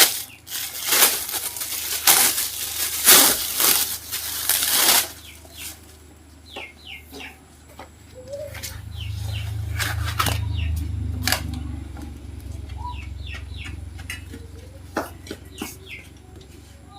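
Bursts of rustling, flapping noise for about five seconds, then scattered short bird chirps over a low rumble that swells and fades in the middle.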